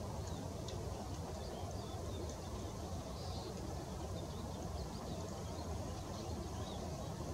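Faint, short high calls of Eurasian siskins scattered throughout, over a steady low rumble of distant city traffic.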